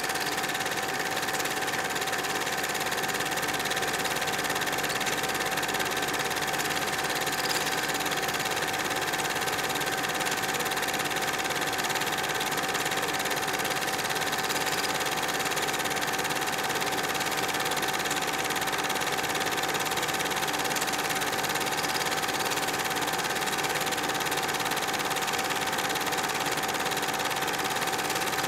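Steam train running at an even pace: a constant mechanical drone with a steady whine, without separate exhaust beats or changes.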